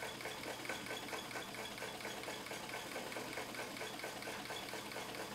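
Vintage White electric sewing machine running slowly and steadily, its needle stitching through leather in free-motion quilting with an even, repeating stitch rhythm.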